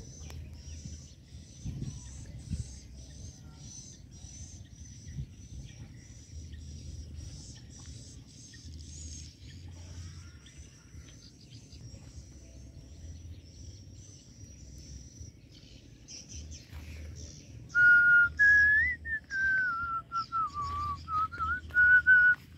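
A steady run of short, high chirps, about two or three a second. About four seconds from the end a loud whistled tone comes in, wavering and sliding up and down in pitch in short phrases, over a low rumble.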